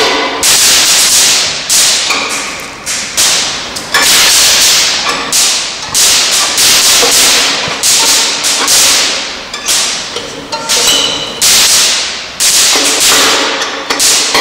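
Violin played with harsh, percussive bow strokes: about a dozen sudden scratchy attacks, each cracking out and fading within a second, with brief pitched notes sounding between them.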